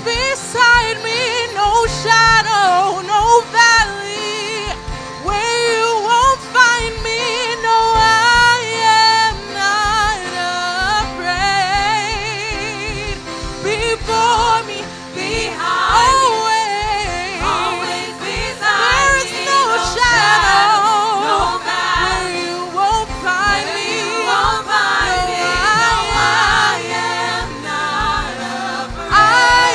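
Gospel worship music: singing with strong vibrato and sliding, ornamented runs over steady band accompaniment.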